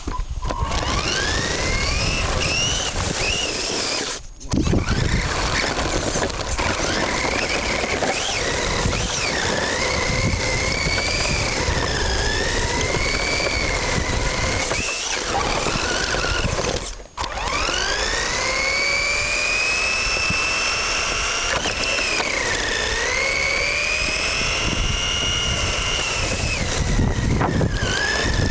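Tamiya TT-01 radio-controlled car's electric motor and geared drivetrain whining, the pitch rising and falling with the throttle, cutting out briefly about 4 seconds in and again around 17 seconds in. Heard from a camera on the car's roof, with the tyres hissing over wet asphalt and slush underneath.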